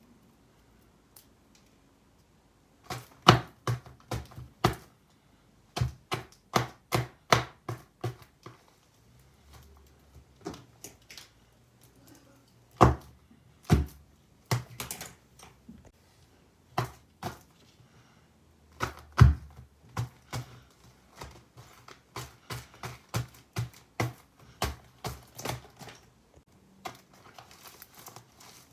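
Sharp, irregular taps and clicks, some in quick runs of several, like typing or tapping on a hard surface in a small room.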